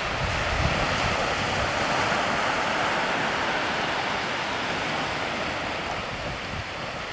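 Mediterranean sea waves washing onto the shore: a steady rushing hiss of surf that eases slightly toward the end.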